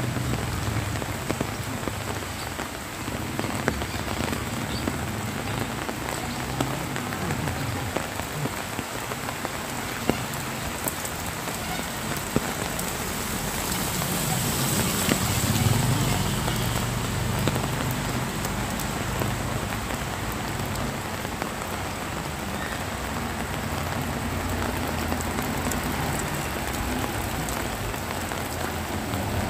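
Light rain pattering on wet pavement, a steady hiss with scattered drips. About halfway through, the sound swells briefly as a motorcycle tricycle passes on the wet road.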